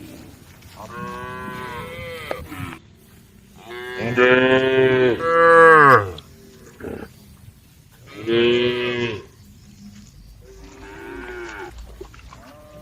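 Cows mooing: four long calls from the herd, the loudest about four seconds in with its pitch dropping at the end, and a fainter call near the end.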